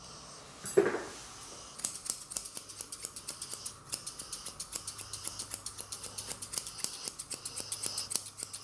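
Thinning shears snipping the fur on a small dog's chin: a steady run of crisp snips, about five a second, starting about two seconds in. A short, louder low sound comes about a second in, just before the snipping starts.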